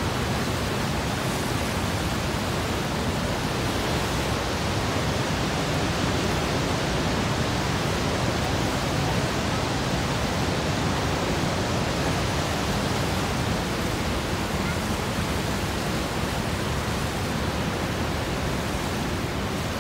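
Steady roar of Niagara's Horseshoe Falls and the rapids rushing to its brink: an unbroken wall of rushing water at an even level.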